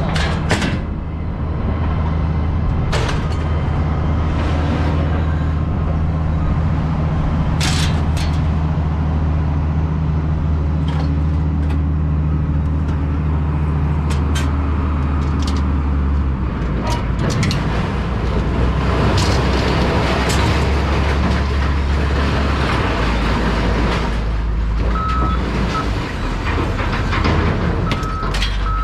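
Truck engine running steadily, its pitch shifting about halfway through, with occasional knocks and rattles. Near the end a reversing beeper starts, in short repeated beeps.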